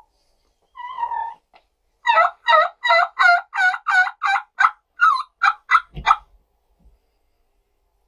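Turkey yelps: a single soft note, then a fast run of about fifteen loud yelps at roughly four a second, ending with a short knock.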